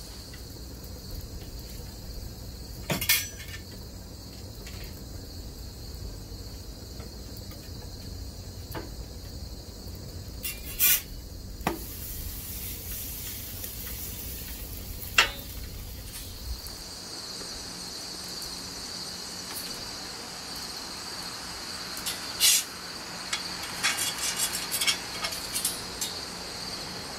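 Scattered sharp clicks and clinks of a metal spatula on a griddle and against a plate, the loudest about 3, 11 and 15 seconds in and a quick cluster near the end, over steady outdoor cricket chirping. A low steady rumble underlies the first half and then stops.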